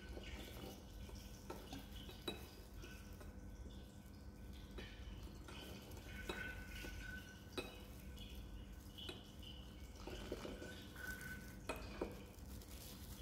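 Glassware clinking: a small glass flask knocking against the rim of a glass funnel a handful of times, with sharp light clinks spread out, as the last of a liquid is drained from the flask into the funnel.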